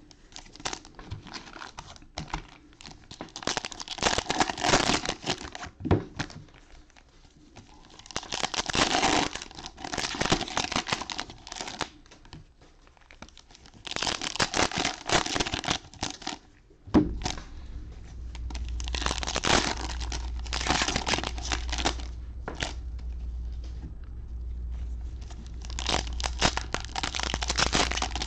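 Foil wrappers of Panini Donruss Optic football card packs being torn open and crumpled by hand, in repeated bursts of crinkling and tearing. A steady low hum comes in about halfway through.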